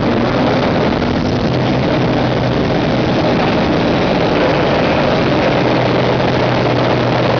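Pitts S2B biplane's six-cylinder Lycoming engine and propeller running steadily in flight, heard from the cockpit with wind rush over it.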